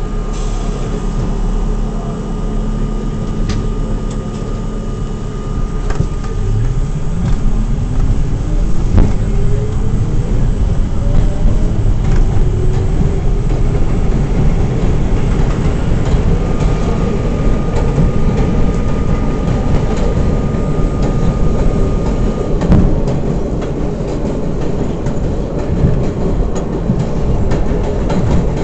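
R42 subway train running, with its traction motors whining and rising steadily in pitch for about five seconds as the train accelerates. Underneath is a steady rumble of wheels on track, a thin steady whine that comes and goes, and scattered sharp clicks and knocks.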